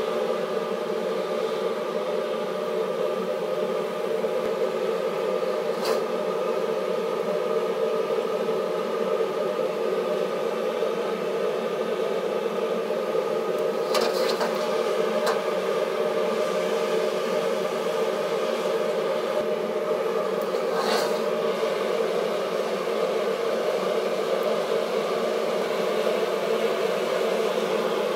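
High-output jet wok burner running with a steady, even rush of flame under a carbon steel wok being heated to burn off its factory oil. Three or four light clicks come as the wok is shifted and rotated on the burner.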